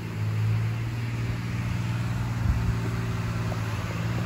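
A steady low mechanical hum from the dry deluge vapor-test rig's air and vapor supply, with a hiss of vapor blowing out of the sprinkler heads.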